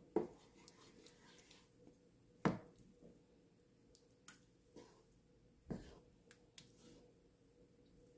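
A wooden spoon stirs a watery meat stew in a nonstick pan, knocking against the pan three times, at about a quarter second, two and a half seconds and nearly six seconds in. Lighter ticks fall between the knocks, over a faint steady hum.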